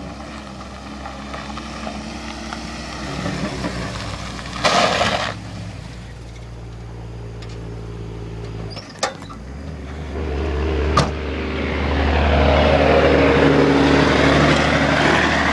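A motor vehicle's engine running steadily, its note shifting about nine seconds in and growing louder and noisier near the end. There is a short loud burst of noise about five seconds in, and two sharp clicks.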